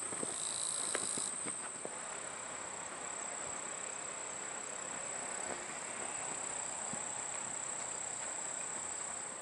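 Insects calling in a steady, high-pitched drone that holds throughout, with a second, louder high buzz joining for about the first second.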